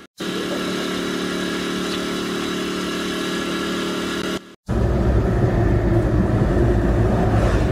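A motor vehicle engine runs with a steady hum. After a short break about four and a half seconds in, it gives way to a louder, rougher low rumble.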